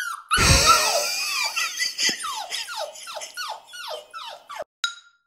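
Small dog, a chihuahua, giving a fast run of high falling yelping cries, about three a second, that die away after about four seconds; a few short high squeaks follow near the end.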